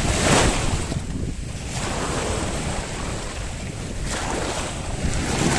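Small waves washing and splashing right at the microphone in shallow sea water, swelling near the start and again about four seconds in, over a steady low rumble of wind on the microphone.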